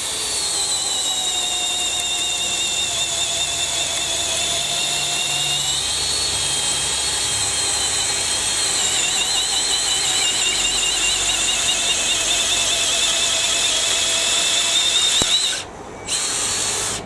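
Makita XPH06 18V brushless hammer driver-drill in low gear, boring with a large auger bit: a steady, high motor and gear whine that sags a little in pitch as the bit loads. Near the end it stops briefly and starts again.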